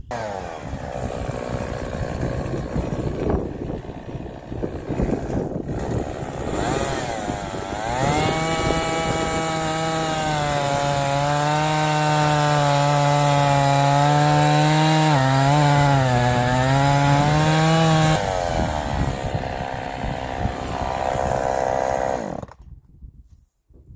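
Chainsaw cutting a point onto the end of a peeled cedar fence post. It speeds up about seven seconds in and holds a high, steady pitch through the cut, dipping briefly as it loads, then slows and stops suddenly near the end.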